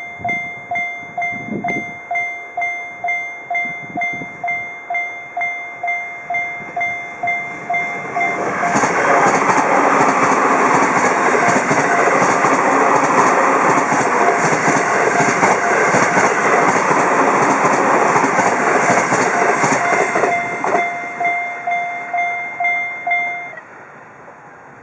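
A Japanese railroad crossing's warning bell ringing steadily at about two strokes a second. About eight seconds in, a train passes loudly over the crossing for some twelve seconds. The bell rings on briefly after the train and stops shortly before the end.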